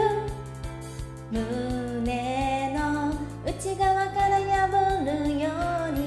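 A woman singing a pop song along to a karaoke backing track with a steady beat. Her voice breaks off briefly about a second in.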